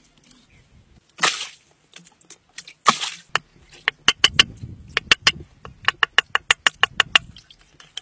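Water splashing twice as hands work in muddy water at the bottom of a hand-dug well pit. Then a fast run of sharp clicks and splashes follows, about five a second, for roughly four seconds.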